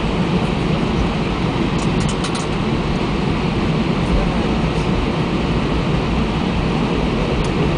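Steady rumble of an Airbus A320's jet engines and airframe heard from inside the passenger cabin as the aircraft rolls on the ground, with a few faint rattling clicks about two seconds in.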